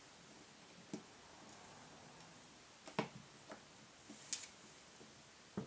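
A handful of faint, scattered clicks and taps of small Glock 26 Gen4 parts being handled, as the connector is fitted into the trigger housing; the sharpest click comes about three seconds in.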